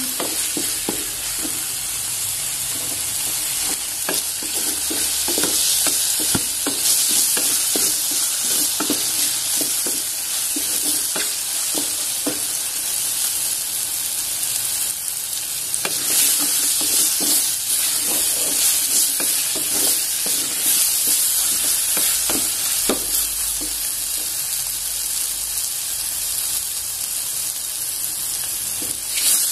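Sliced button mushrooms sizzling as they fry dark in a metal pot, with a wooden spatula stirring and scraping through them in short, irregular strokes. The mushrooms are being browned until they turn almost black.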